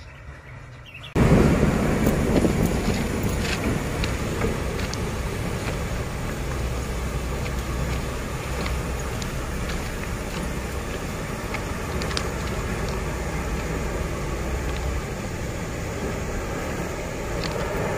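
D11H diesel locomotive running close by, starting suddenly about a second in: a steady engine rumble and hum under rail noise, with scattered sharp clicks.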